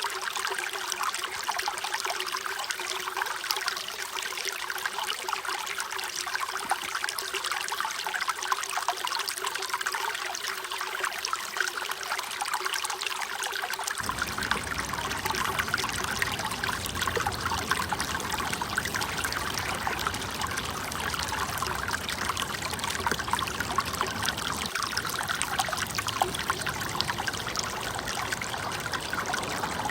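Running water trickling and splashing steadily, like a small stream. About halfway through, a lower rush comes in suddenly and stays.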